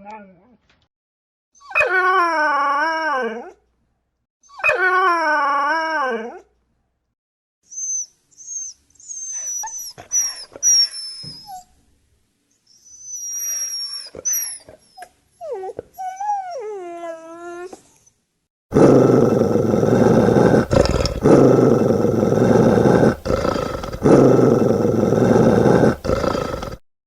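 A dog whining: first two long wavering whines, then from about 8 seconds in a string of short, high-pitched whimpers. From about 19 seconds in, a dog growls steadily and deeply for about eight seconds, with a few brief breaks.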